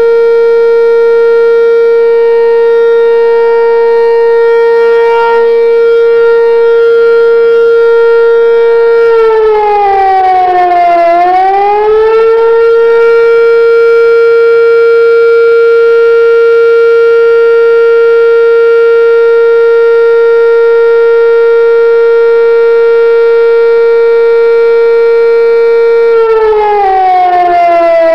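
Outdoor tornado warning siren sounding loudly, warning that a tornado or funnel cloud has been spotted nearby. It holds one steady pitch, then drops and climbs back up about ten seconds in, and again near the end.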